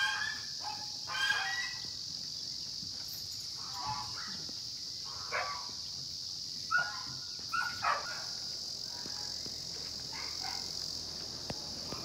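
Short honking calls of farmyard animals, several at irregular intervals, over a steady high-pitched insect buzz.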